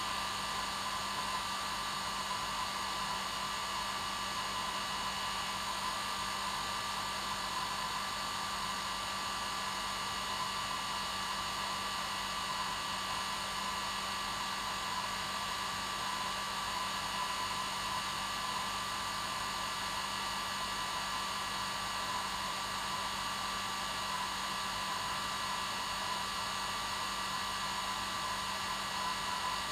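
Hair dryer running steadily: an even whooshing hiss with a high motor whine and a low hum, unchanging throughout.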